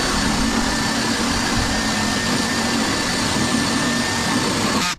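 Makita electric drill running steadily as it bores a hole into a 2x2 wooden post, then cutting off suddenly near the end.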